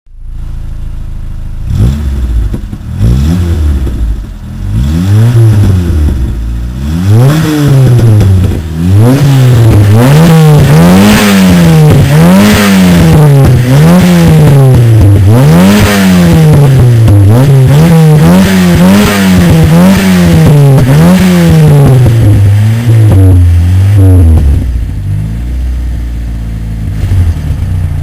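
Renault Super 5's four-cylinder engine being revved in repeated quick blips, its pitch climbing and dropping about once every second or so, then settling back to a steady idle near the end.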